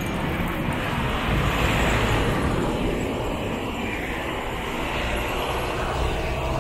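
Steady rumble of engine noise that swells about two seconds in and eases off after.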